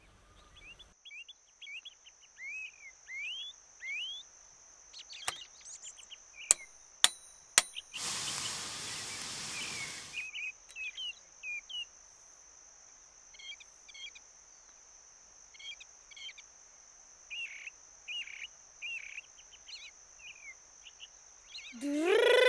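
Birds chirping over a steady high-pitched insect drone, with a few sharp clicks about five to seven seconds in and a short hiss of about two seconds around eight seconds in.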